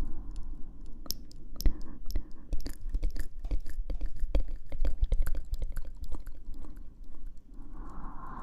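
ASMR mouth sounds very close to the microphone: a rapid, irregular run of wet clicks and smacks.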